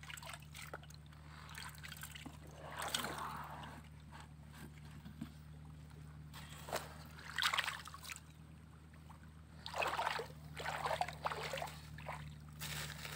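Water trickling and sloshing off a gold pan into a small basin, with a few short splashes as the pan is rinsed by hand.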